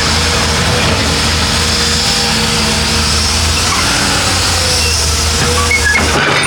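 Heavy diesel engine of earthmoving machinery running steadily under work, a deep even hum, briefly dropping out just before the end.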